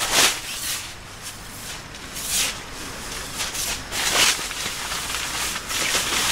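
Tent fabric rustling and swishing in several short bursts as a bundled tent piece is pulled about and unfolded by hand.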